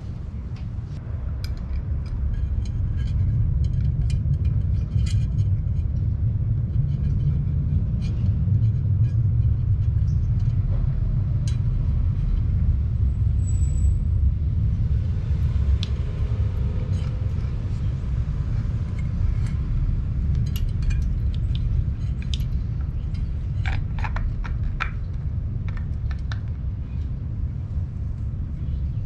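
A steady low rumble, a little stronger from about two seconds in, with scattered light clicks and taps over it.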